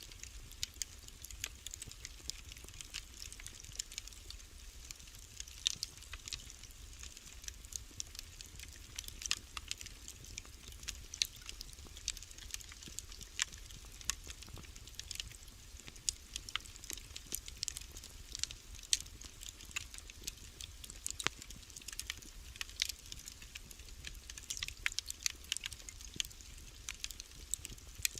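Wood fire burning in a fireplace, crackling with many irregular sharp pops and snaps over a low steady rumble.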